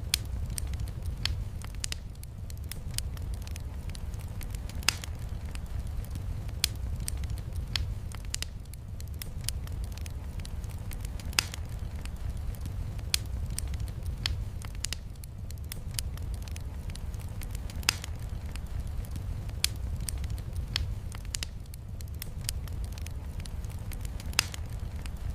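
Wood fire crackling in a stone fireplace: sharp, irregular pops and snaps every second or so over a steady low rumble.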